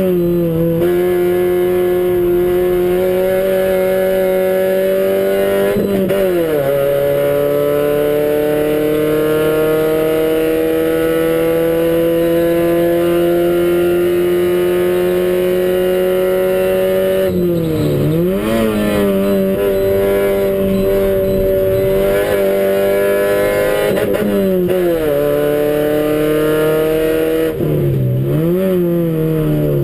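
Toyota Starlet race car's four-cylinder engine, heard from inside the cabin, running hard under load. The revs drop sharply about six seconds in, then climb slowly and steadily for about ten seconds. In the second half the revs dip and rise again several times as the car is driven through corners.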